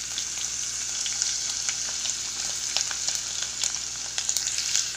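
Chopped ginger and garlic sizzling in hot coconut oil: a steady hiss full of small crackles as they hit the oil.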